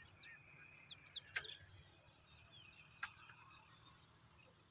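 Faint rural ambience: a steady high insect drone, with a few short bird chirps in the first second and a half. Two sharp clicks come about one and a half and three seconds in.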